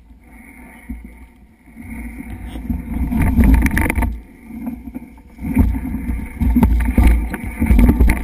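Mountain bike riding over a rough dirt trail: a low rumble of wind on the microphone with rattling and knocks from the bike over roots and stones, louder from about two seconds in and again from about five and a half seconds.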